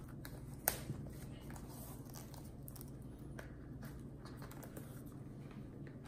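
Faint handling noises of a cardboard keyboard box being opened: light scrapes and rustles, with one sharper click under a second in, over a steady low hum.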